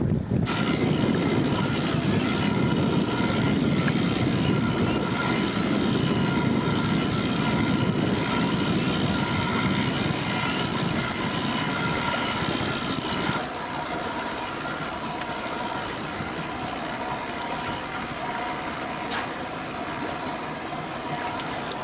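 Boat motor running steadily under wind noise on the microphone, a low rumble with a steady whine above it. About thirteen seconds in, the rumble drops away and the sound grows quieter.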